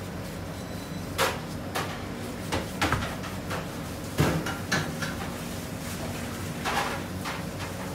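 Irregular knocks and clatters of handling work in a bakery kitchen, about eight in all with the loudest about four seconds in, over a steady hum of machinery.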